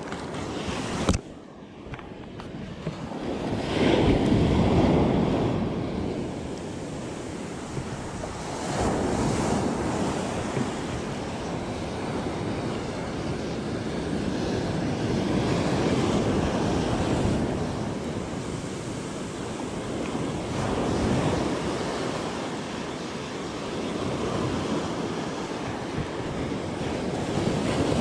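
Ocean surf breaking and washing up the beach, swelling and ebbing every few seconds, with wind buffeting the microphone. A single sharp knock about a second in.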